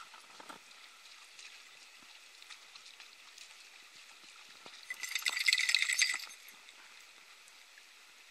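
A dog splashing through shallow river water: faint scattered ticks and patters, then a loud, crackling burst of splashing for about a second around five seconds in.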